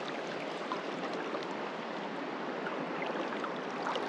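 River water running over rocks and boulders: a steady rushing wash.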